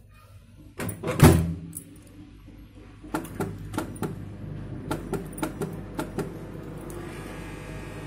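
Microwave oven door shut with a thud about a second in, then a quick series of clicks as the control buttons are pressed to set the timer. Near the end the oven starts running with a steady hum.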